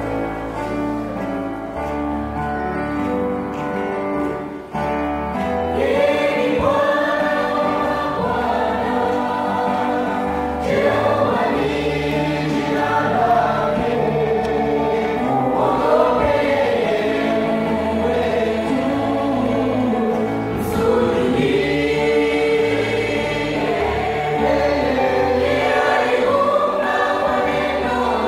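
Mixed youth gospel choir singing into handheld microphones over an instrumental accompaniment with a steady bass line. The accompaniment plays alone for roughly the first five seconds before the voices come in.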